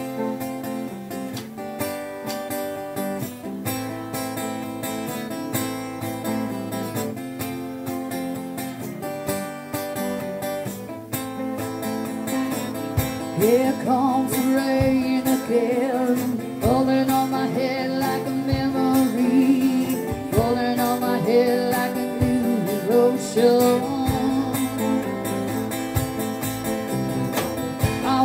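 Live band music: strummed acoustic and electric guitars play an intro, and about 13 seconds in a woman starts singing over the band as the sound fills out.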